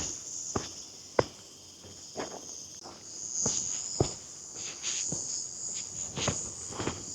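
A steady, high-pitched insect chorus, with the walker's footsteps falling about twice a second over it.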